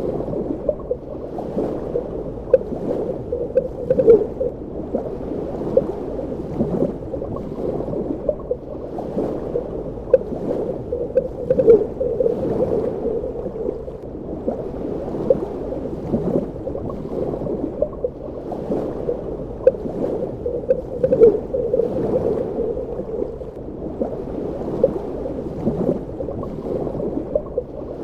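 Underwater ambience: a muffled, steady wash of water with frequent small bubbling pops and gurgles.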